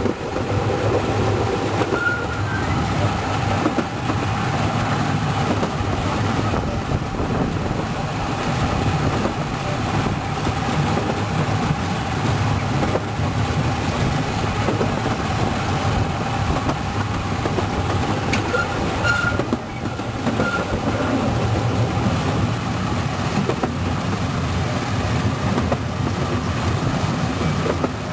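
Wulai trolley, a small electric tourist train, running steadily along its track with a continuous rumble of wheels and motor. Two brief high squeaks come through, about two seconds in and again about two-thirds of the way through.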